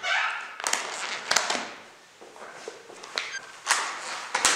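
A string of sharp taps and knocks, about half a dozen, with rustling noise between them.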